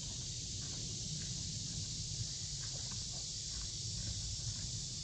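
Steady high-pitched drone of a summer insect chorus over a low rumble, with a few faint footsteps.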